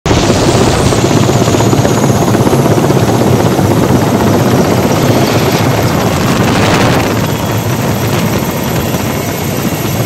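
Helicopter rotor and engine noise heard from on board, a loud, steady din that eases slightly about seven seconds in.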